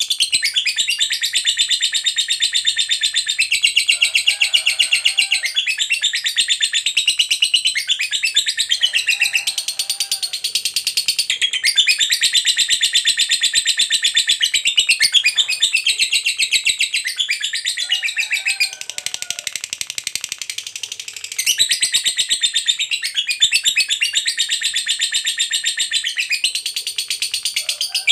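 Lovebird in a long 'ngekek' chatter: a fast, shrill trill kept up for many seconds with only brief breaks. It turns softer for a few seconds past the middle, then comes back at full strength.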